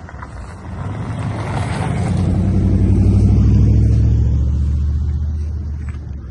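A motor vehicle drives past close by. Its low engine sound builds over the first few seconds, peaks around the middle, and fades away near the end.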